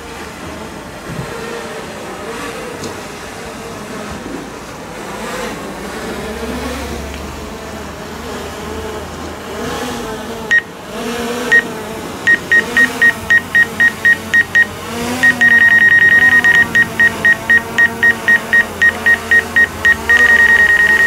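Drone propellers humming with a wavering pitch as a DJI Mavic Air 2 descends to land close by. From about halfway a single high warning beep starts from the DJI controller, first in quick pulses about four a second, then held as a steady tone. It marks the drone's low altitude on landing.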